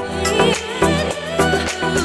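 Background music with a steady drum beat and a wavering, ornamented melody line over a bass.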